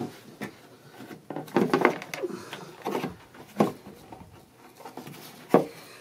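Plastic clicks, knocks and rubbing as gloved hands work the liftgate handle and switch assembly loose from inside the liftgate, with two sharp knocks in the second half, the louder one near the end.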